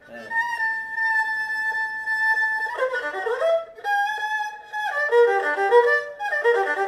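Erhu (Chinese two-string bowed fiddle) played solo. A long held note gives way to quick broken-chord arpeggio runs up and down, then a second held note and more fast runs.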